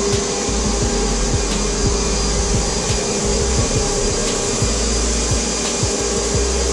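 Titan Capspray HVLP paint-sprayer turbine running steadily: an even whir of rushing air with a constant hum.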